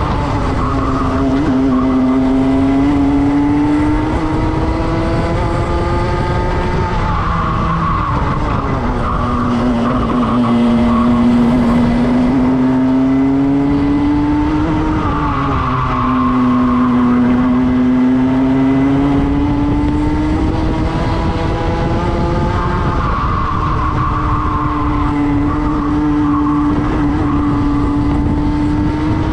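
Racing kart engine at full race pace: its note climbs steadily as the kart accelerates, then drops sharply as it slows for corners about seven and fifteen seconds in, and sags again around twenty seconds before building once more.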